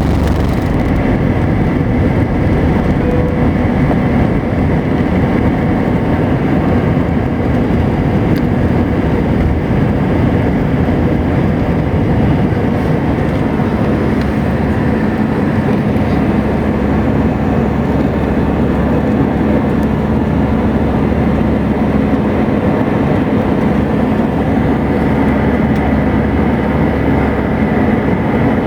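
Airliner cabin noise during takeoff: a loud, steady rumble of the jet engines and rushing air. About halfway through, a steady hum joins it.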